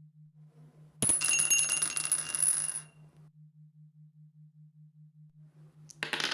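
Dice thrown and clattering to a stop, a rapid run of clicks lasting about two seconds, starting about a second in. A second roll begins near the end. A faint low hum pulses underneath.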